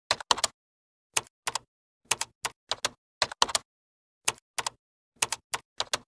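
Typing sound effect: about twenty sharp keystroke clicks in irregular short runs, with silence between the runs.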